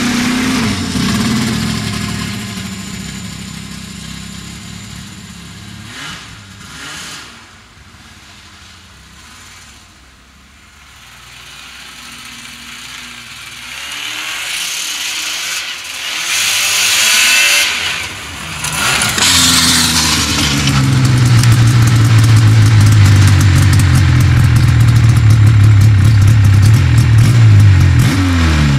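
1986 Yamaha Phazer snowmobile's two-stroke engine running as the sled rides off, fading to faint over about ten seconds, then growing louder as it comes back and runs close by with a steady drone, revving up and down near the end. The lean pop it had before the carburettor fix is no longer heard.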